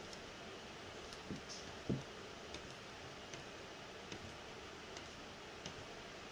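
Hands fitting small hardware to a printer control board on a 3D-printed plastic frame: scattered light clicks and ticks, with one knock about two seconds in.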